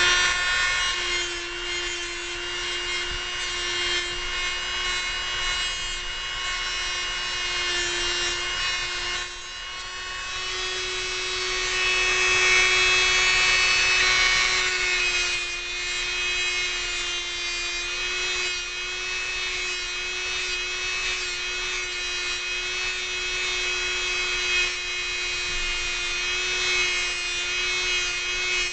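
Dremel rotary tool running at high speed with a cutting wheel, grinding detail into a spring-steel drain-snake pick blank. It makes a steady high whine over a grinding hiss that grows louder for a few seconds around the middle as the wheel bites harder.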